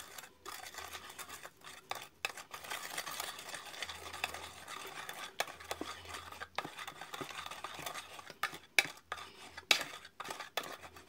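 A metal utensil stirring and mashing a thick, wet bait paste of rotten tempeh, tuna and raw egg in an enamel plate, with steady squelching and scraping and irregular small clicks against the plate.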